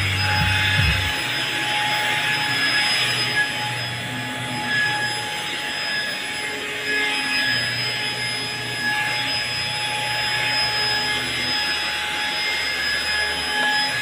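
Deerma Anti-Dust handheld vacuum cleaner running steadily, a high motor whine over a rush of air, as its nozzle is worked over fabric sofa upholstery.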